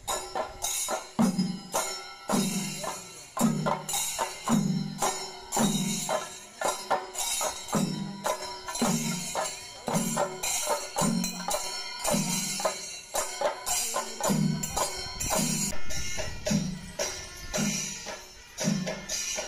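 Percussion music with a steady low drum beat, a little faster than one stroke a second, with rapid sharp strokes and a high jingling running over it.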